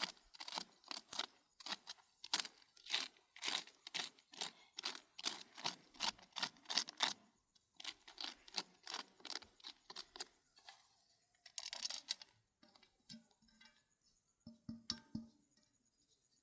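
Rapid rustling and crackling, several quick strokes a second, like leafy cherry branches being handled while fruit is picked by hand. It thins to scattered clicks and a few soft knocks after about ten seconds.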